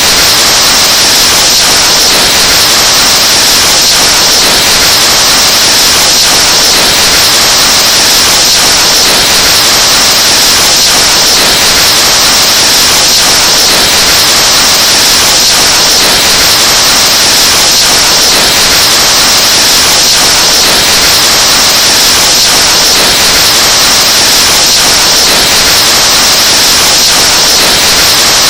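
Breath blown straight into a microphone, boosted until it distorts into a harsh, steady, very loud static hiss that never lets up.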